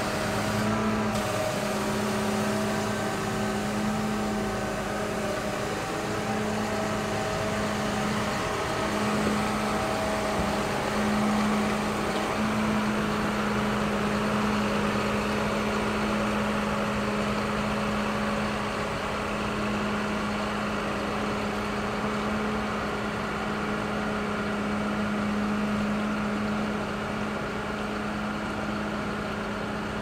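John Deere tractor's diesel engine running at a steady speed while the tractor manoeuvres and reverses with a hedge cutter mounted, giving a constant drone.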